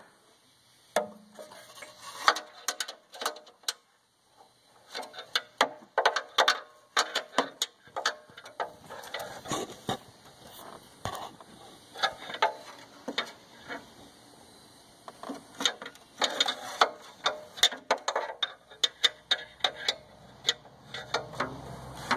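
A wrench tightening a new exhaust gas temperature sensor into the exhaust: runs of sharp metallic clicks in quick succession, broken by short pauses between strokes.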